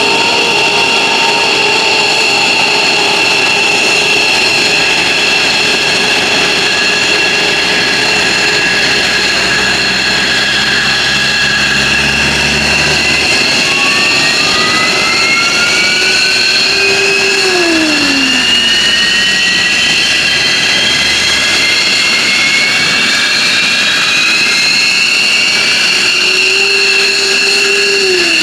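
F-15J Eagle jet engines running on the ground during engine start: a loud, steady high-pitched whine made of several tones. From about halfway through, a new whine rises steadily in pitch as an engine spools up. A short tone drops in pitch twice.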